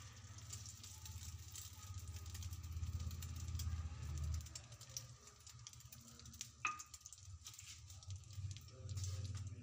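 Egg-coated potato-chicken kababs sizzling faintly in ghee on a flat iron tawa over a low flame, with fine crackling throughout and a low rumble underneath that swells a few seconds in. A single sharp click comes about two-thirds of the way through.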